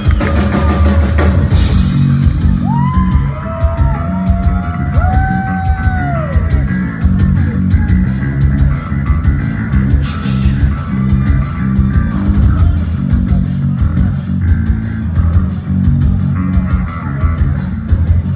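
Heavy metal band playing live in a club, heard from the crowd: distorted electric guitars, bass and a drum kit, with regular cymbal hits from about seven seconds in. A few sliding high notes ring out between about three and six seconds in.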